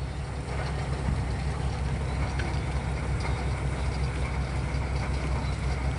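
Rice combine harvester's diesel engine running steadily under load, a continuous low rumble with a faint steady whine above it, as it unloads paddy into a lorry.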